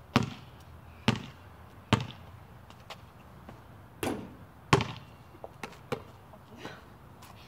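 A basketball bounced on a concrete court, about one bounce a second. About four seconds in, the shot ball strikes the hoop's rim, then drops and bounces on the concrete a few more times, each bounce softer.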